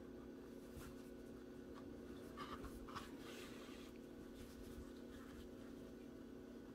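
Faint scratchy rustling of acrylic yarn being drawn through crocheted stitches with a yarn needle as hands handle the stuffed piece, strongest around the middle, over a steady low hum.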